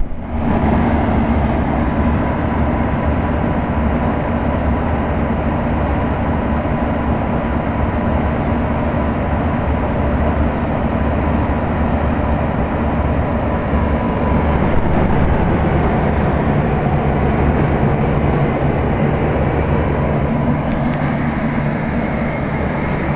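Old General Electric central air-conditioner condensing unit running steadily: the compressor's hum under the rushing air of the condenser fan, with a faint steady whine.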